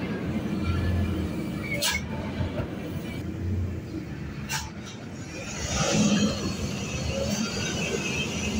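Diesel engine of a fully loaded Hino truck running at low revs as it creeps along a narrow dirt track, a steady low drone that grows louder about six seconds in.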